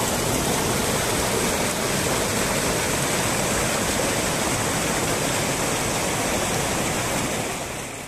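Steady rush of flowing water, a stream or waterfall, fading out near the end.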